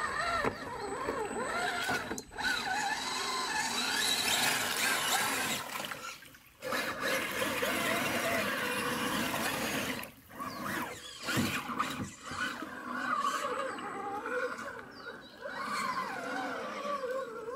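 Electric motor and gearing of a Redcat Gen8 Scout II RC rock crawler whining as it drives through a rocky creek, the pitch rising and falling with throttle and load and dropping out briefly a few times, over the splash and trickle of water around the wheels.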